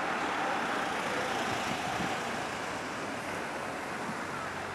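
Steady outdoor background noise with no distinct events, in the manner of distant road traffic.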